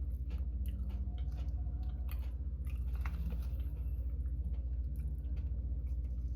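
A person chewing kettle-cooked potato chips with the mouth close to the microphone, giving a string of crisp crunches. A steady low hum runs underneath.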